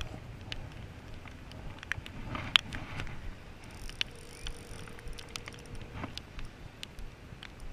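Outgoing phone call ringing: one two-second burr of a ringback tone from a phone's speaker, about four seconds in, over scattered sharp taps and ticks.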